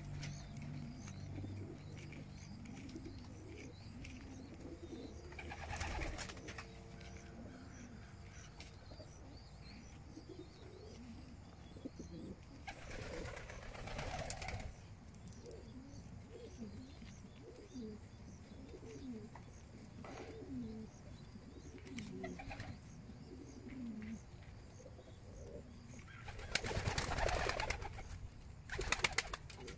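Racing pigeons cooing over and over in short low calls, with a few bursts of wing flapping, the longest near the end.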